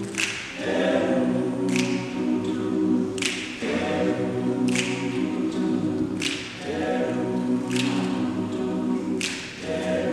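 All-male a cappella group singing sustained, wordless chords that change about every three seconds. A short, crisp percussive hit lands about every second and a half.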